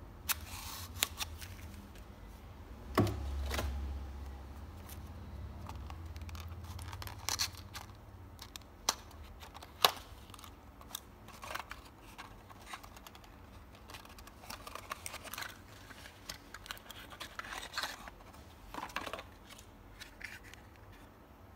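A small cardboard product box being slit open with a snap-off utility knife and its flaps pulled apart by hand: cutting scrapes, cardboard rustling and sharp clicks, with a thud about three seconds in.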